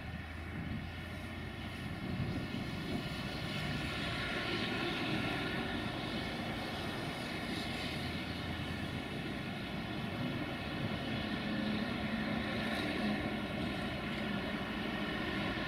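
Diesel-electric locomotive of class 060-DA (LDE2100) with a Sulzer diesel engine, running steadily under load as it hauls a freight train. The engine grows slowly louder as the train approaches.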